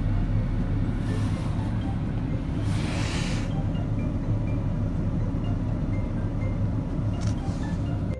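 Steady low rumble of vehicle noise, with a short rushing hiss about three seconds in.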